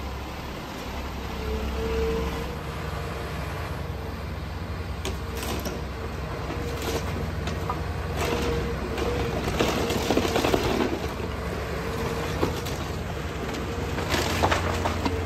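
Cat hydraulic excavator's diesel engine running steadily under load as its bucket tears into a wood-frame building. Wood and siding crack, splinter and crash down from about five seconds in, heaviest around ten seconds and again near the end.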